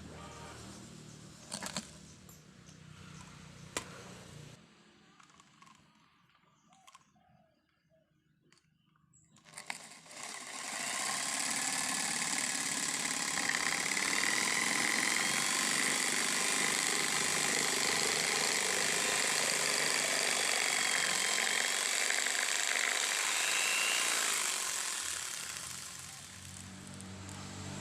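Power tool fitted with a jigsaw adaptor running for about fourteen seconds: a loud, steady whirring with a high whine over it, starting about ten seconds in and winding down near the end. A few clicks and a quiet stretch come before it.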